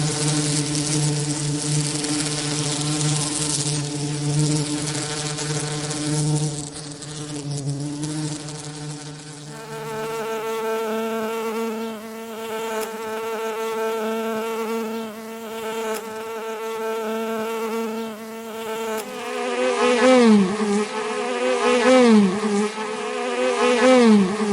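Bee buzzing in flight: a steady hum rich in overtones. About ten seconds in it jumps abruptly to a higher pitch, and near the end the pitch dips and comes back up several times as the buzz swells louder.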